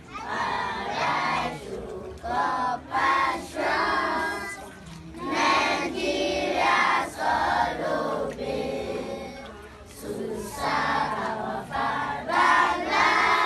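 A group of children singing or chanting together in short phrases, several voices at once.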